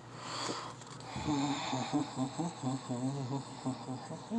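A man humming a wavering tune to himself, starting about a second in, after a brief rustle near the start.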